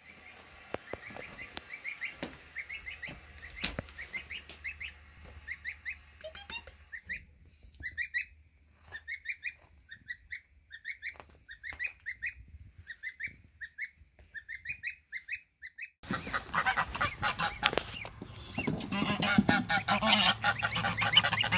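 A gosling peeping: runs of short, high, upward-sliding peeps, several a second, with brief pauses between runs. About two-thirds of the way through there is a sudden change to a louder, noisier background, with the peeping going on over it.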